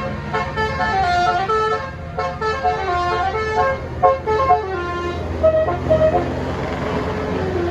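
Bus 'telolet basuri' multi-tone musical horn playing a quick tune of short stepped notes over the bus's running engine. The tune stops about six seconds in, leaving the engine running.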